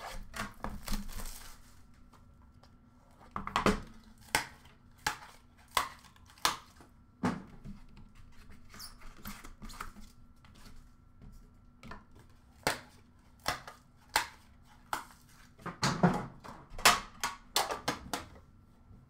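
Hands handling trading cards and a card box: a string of short taps and clicks of card stock and cardboard, about one a second, bunched closer together near the end.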